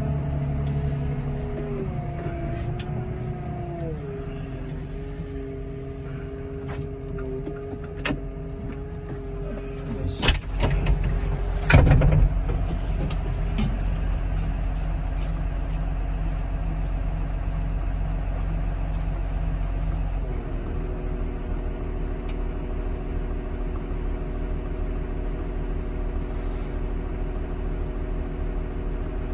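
Heavy vehicle engine running steadily, its pitch dropping a few seconds in and shifting again about two-thirds of the way through. A few sharp knocks come around the middle, the loudest about twelve seconds in.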